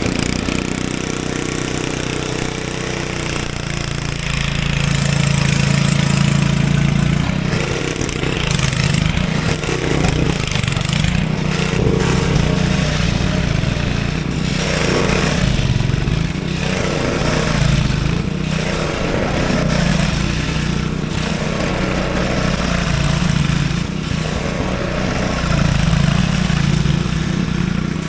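Craftsman 5/24 snowblower engine running steadily under load as it clears snow, its pitch holding with small rises and dips.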